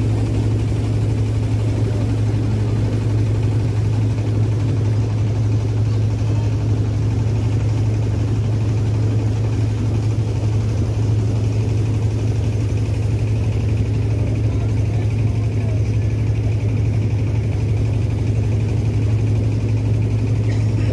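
A motorboat's engine running at a steady speed, a constant low drone that does not change.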